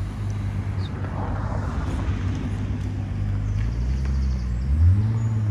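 A car engine running as the car pulls away, its note rising into a short rev near the end.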